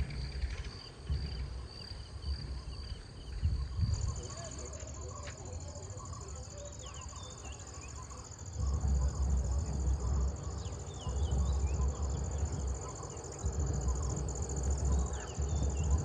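Insects calling: a pulsing high chirp, then from about four seconds in a steady, higher trill, with a few short bird calls over it. From about halfway, a low rumble on the microphone comes and goes.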